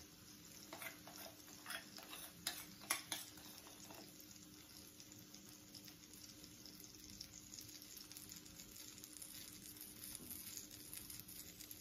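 Faint sizzling of water steaming in a non-stick frying pan under soufflé pancakes, with a few light taps of a metal spoon in the first four seconds as batter is spooned on top.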